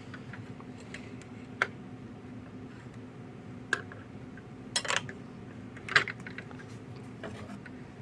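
Small, sharp clicks and taps of a diecast model truck being handled and set onto its plastic display base: about five separate ticks spread out, over a low steady hum.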